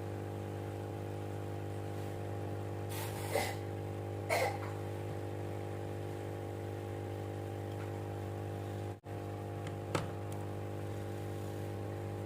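Small electric pump motor humming steadily at one pitch, with two short scraping sounds a few seconds in and a sharp click near the end.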